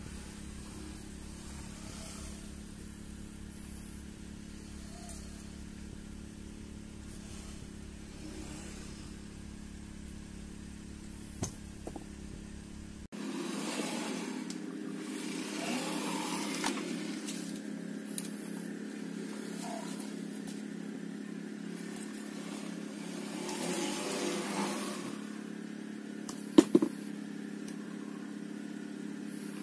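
A steady machine hum with a low drone. About thirteen seconds in it changes abruptly to a brighter hum with short noisy sweeps, and two sharp clicks near the end are the loudest sounds.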